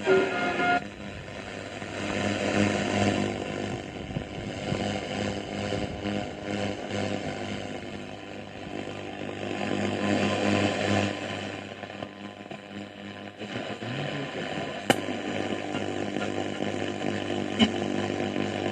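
Philips BCA435U valve radio's loudspeaker on the shortwave band giving rushing static and noise that swells and fades, over a steady low hum. A sharp crackle comes about fifteen seconds in.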